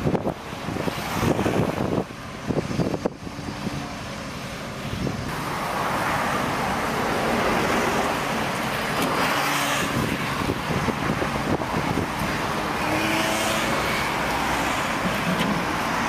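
Motor vehicle engine running amid street traffic noise, turning into a steady, louder rush about five seconds in.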